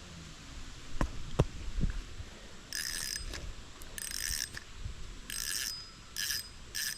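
Spinning fishing reel cranked in six short spurts, a metallic whir each time, as a hooked fish is reeled in; a few light knocks come just before.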